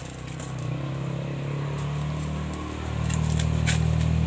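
A motor vehicle engine running steadily, growing louder about a second in and again near the end, as if a motorbike or car is drawing closer. A few short sharp snaps come near the end, as the salak plant is worked at its base with a hand tool.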